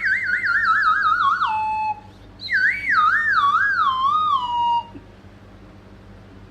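Two warbling whistle-like comic sound effects, each wavering up and down as it slides down in pitch. The first has a fast wobble and drops sharply at its end. After a short gap, the second has a slower, wider wobble and stops a little before five seconds in.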